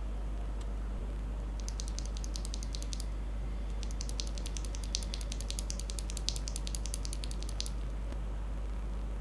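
Typing on a Royal Kludge RK68 Pro aluminium-case mechanical keyboard with KTT Strawberry linear switches and SA-profile keycaps: two quick runs of keystrokes, a short one then a longer one after a brief pause, over a steady low hum.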